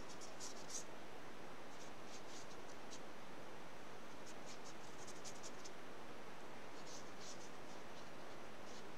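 Small watercolour brush stroking across watercolour paper, short scratchy strokes coming in several quick groups, over a steady faint hiss.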